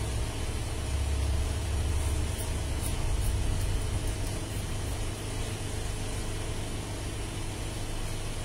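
A steady low rumble, strongest in the first few seconds, with a few faint snips of haircutting scissors about two and a half to three and a half seconds in.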